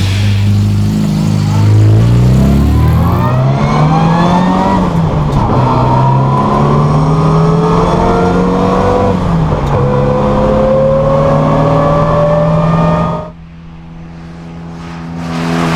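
A race car engine accelerating hard through the gears. Its pitch climbs and drops back at each of about three upshifts, then holds a high note before cutting off suddenly. Near the end another engine note swells up.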